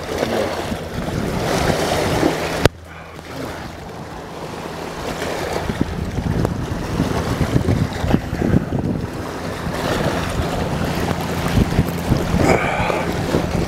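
Wind buffeting the microphone over choppy water, with a steady low hum underneath. The wind noise drops suddenly about two and a half seconds in, then builds back up.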